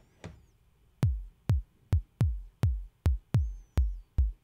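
Synthesized kick drum from Logic's ES P synth: white noise through a self-oscillating resonant low-pass filter, swept down by the envelope. Starting about a second in, it is played about nine times at uneven intervals. Each hit is a sharp click that drops quickly in pitch to a deep low tone, and the key velocity also shapes the filter.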